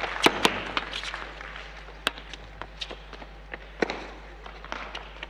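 Applause dying away in the first second, then scattered sharp knocks and light taps on the hard court between tennis points: balls bouncing and quick footsteps. Two loud knocks come just after the start, and single ones about two and four seconds in.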